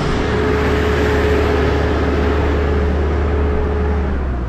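Heavy equipment's engine running steadily, with a steady whine over the low hum; the whine stops and the engine note drops about four seconds in.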